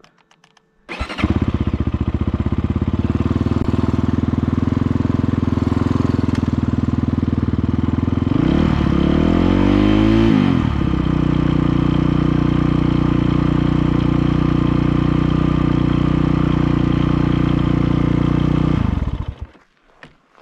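Double-overhead-cam 300R dirt bike engine starting about a second in and idling steadily, with one throttle blip around the middle whose pitch rises and then drops back quickly to idle. The engine is shut off near the end. The run is a check of whether a hanging idle has been cured by an open-loop ECU tune.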